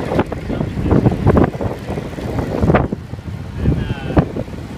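Wind buffeting the microphone of a camera carried on a moving bicycle: an uneven, gusting rumble with sharp swells, with faint voices near the end.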